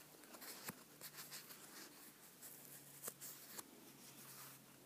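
Near silence: faint rustling and a few small clicks of fingers handling paper-backed fabric pieces, over a low steady hum.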